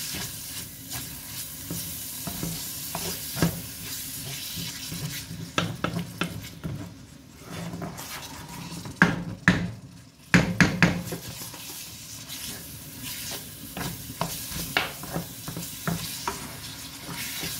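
Minced pork sizzling in a frying pan while a wooden spoon stirs and breaks it up, scraping and tapping against the pan, with a few louder knocks of the spoon around the middle.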